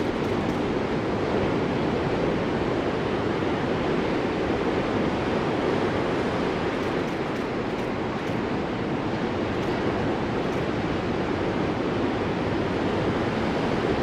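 Ocean surf breaking on a beach: a steady wash of noise, with no single wave crash standing out.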